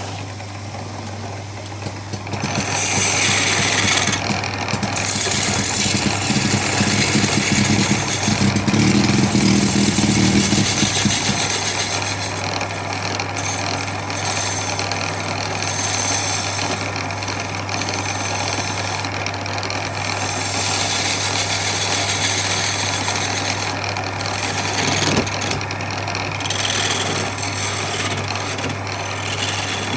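Power tool motor running steadily on the wood, with a louder, rougher stretch from about two to eleven seconds in.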